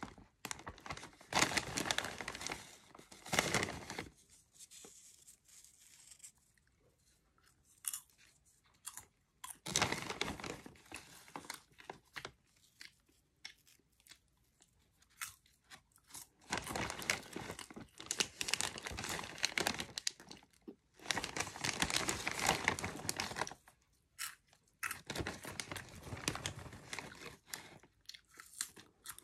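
Close-up chewing of cheddar cheese popcorn: bouts of loud crunching a few seconds long, five of them, with quieter pauses and small clicks between mouthfuls.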